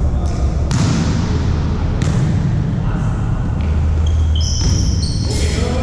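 Volleyball being hit and bouncing: three sharp smacks, with voices in the background.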